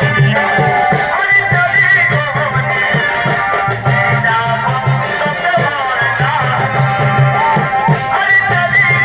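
Live Chhau dance folk music: drums keep up a steady beat while a high, wavering melody line plays over them.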